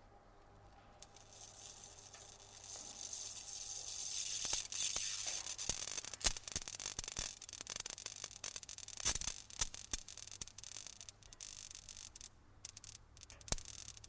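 Electric bug zapper crackling: irregular sharp snaps over a hiss that swells in about a second in, with a faint steady low hum underneath.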